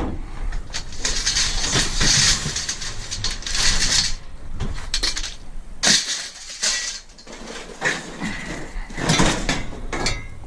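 Scrap metal being handled and moved about: irregular clanks, rattles and scraping of metal items, with a few longer rustling or scraping stretches.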